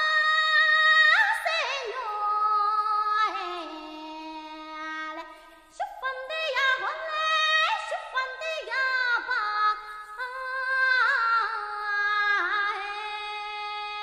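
Background music: a high female voice sings a slow melody of long held notes that slide from one pitch to the next.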